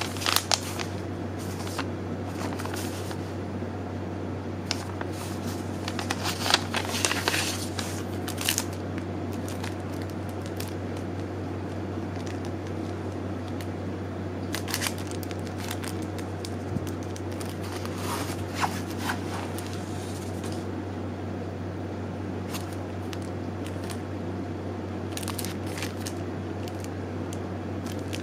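Nylon jacket fabric and a plastic product packet rustling and crinkling as they are handled, in scattered bursts over a steady low hum.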